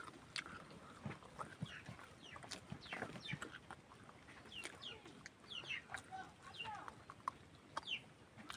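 Faint bird calls: many short, quick chirps that fall in pitch, some in close pairs, with scattered soft clicks between them.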